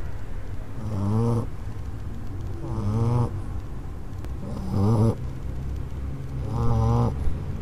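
English Bulldog snoring in its sleep: four snores about two seconds apart, each about half a second long with a wavering pitch.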